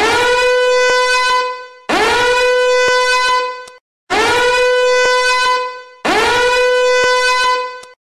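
Loud alarm ringtone: a rich, horn-like tone that swoops up in pitch at the start of each blast and then holds steady. It repeats four times, about every two seconds, each blast tailing off before the next.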